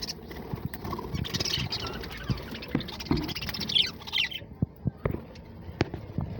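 A flock of aviary birds chattering, a dense stream of overlapping high chirps. The chirping thins out after about four seconds, leaving scattered sharp clicks and taps.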